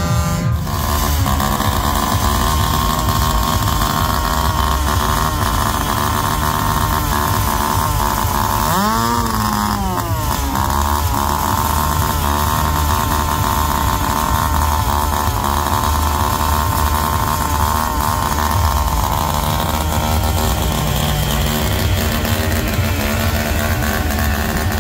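Small engine of a homemade chopper-style motorized bicycle running steadily, revved up and back down once about nine seconds in. A horn breaks off at the very start.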